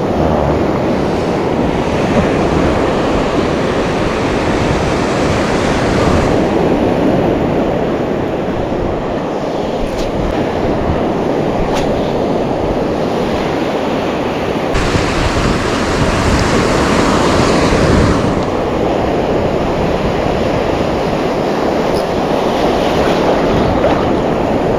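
Ocean surf breaking and washing on the shore, a steady rushing noise that swells for a few seconds about two-thirds of the way through.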